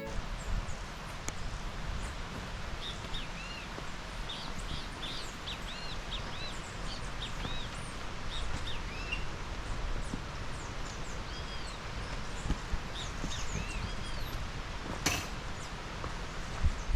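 Small birds chirping in repeated short, arched notes over a steady outdoor hiss, with one brief sharp noise about fifteen seconds in.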